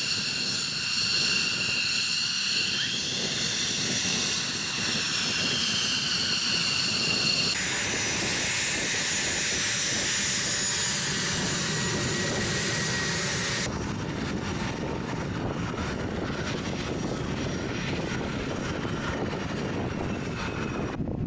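Military jet engines across three edited shots: first an F-15E Strike Eagle's engines giving a loud, high whine whose pitch shifts as it rolls along the runway. About seven seconds in, the sound cuts to an A-10's turbofan whine while it taxis. Near the middle it cuts again to a duller, steady rushing jet noise.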